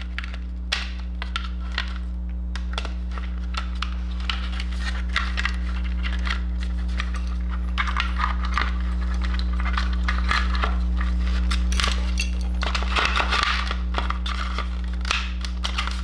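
Small clicks, taps and rustles of wiring-harness wires and plastic connector plugs being handled and pushed through the openings of a motorcycle headlight shell, over a steady low hum.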